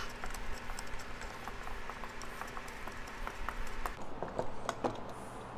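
Light, irregular clicks and taps of a small steel quarter-20 bolt being handled and threaded in by hand at a threaded insert.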